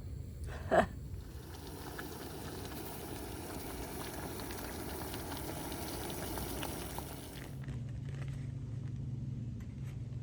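Pot of water boiling on an MSR Pocket Rocket Deluxe canister stove, a steady bubbling for about seven seconds, with a brief loud squeak under a second in. Near the end it gives way abruptly to a steady low hum.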